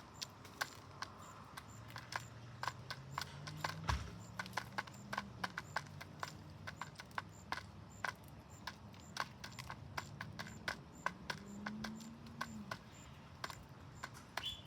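Pigeons pecking at seed: many quick, irregular beak taps, several a second, with low cooing that rises and falls underneath.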